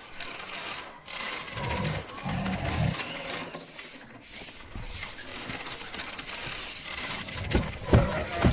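Cartoon sound effects: soft rustling and fine mechanical clicking, with a few low thuds, then several sharp knocks near the end.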